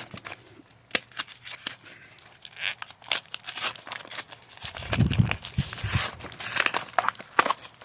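Packaging of a Pokémon trading card box being torn open and crinkled by hand, with scattered sharp clicks and rustles and a few dull thumps about five seconds in.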